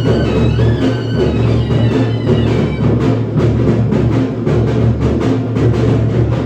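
Dhangari folk music: heavy drums beating a fast, steady rhythm, with a high wavering melody line over them that fades out about two seconds in.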